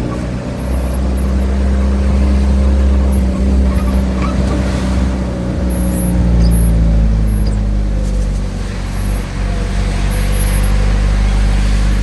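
Car engine running at low speed with a steady low rumble, heard from inside the car, its pitch drifting a little as the car moves.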